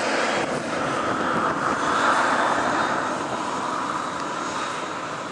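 Jet engines of a Boeing 757 on final approach, Rolls-Royce RB211 turbofans, heard as a steady rushing noise with a faint high whine over it. It eases off slightly near the end.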